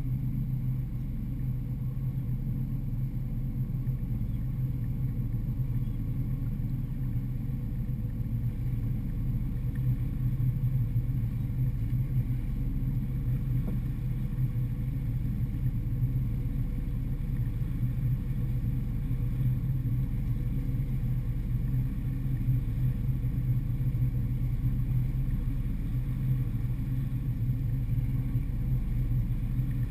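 Twin Suzuki outboard motors running steadily at low speed, a constant low drone that grows a little louder about ten seconds in.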